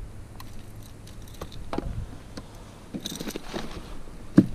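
Small clicks and scrapes of fishing pliers and a hard plastic lure being worked free from a small bass in a landing net, with a short scuffle about three seconds in and a sharp knock near the end.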